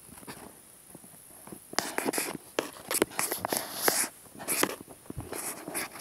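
Handling noise from a handheld camera: irregular rustling and sharp clicks, starting about two seconds in.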